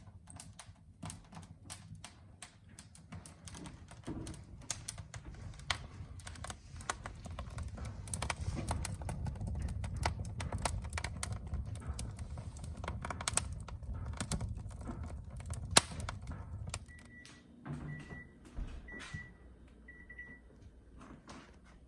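Wood fire crackling in a fireplace: dense, irregular sharp pops over a low rumble, fading after about seventeen seconds. Near the end come four short high electronic beeps, about a second apart.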